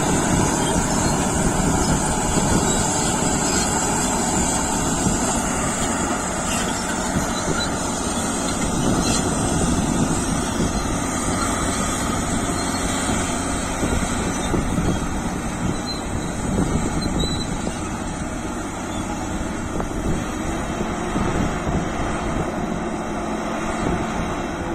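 Caterpillar D7G bulldozer's diesel engine running steadily, an even loud drone without sharp knocks.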